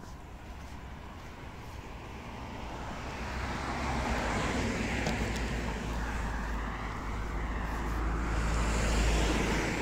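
A motor vehicle driving past on the road: its engine and tyre noise builds steadily over several seconds with a deep rumble, loudest near the end.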